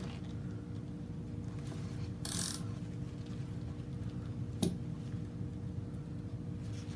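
Ratcheting wire crimper being squeezed onto a heat-shrink butt connector on 10-gauge wire: a short rasp about two seconds in, then one sharp click a little past halfway, typical of the tool's automatic release letting go at full crimp pressure. A faint steady hum lies underneath.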